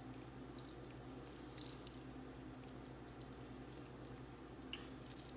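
Quiet room with a steady low hum and a few faint, light ticks scattered through it.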